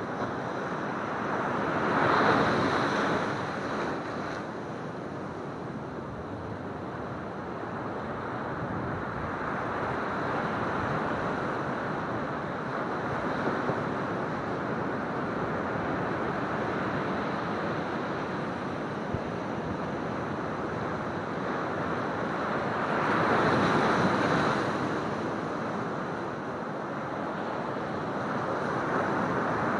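Pacific surf breaking and washing up a sandy beach among rocks: a steady rush of water that swells louder about two seconds in, again about twenty-three seconds in, and once more near the end.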